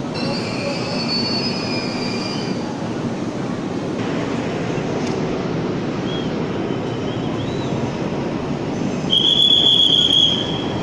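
A train running through the station with a steady rumble, its wheels or brakes squealing high for the first couple of seconds. About nine seconds in, a loud, high, steady tone sounds for about a second.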